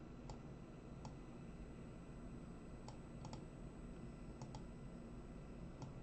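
Faint computer mouse clicks, about eight, scattered and some in quick pairs like double-clicks, over a steady low room hum.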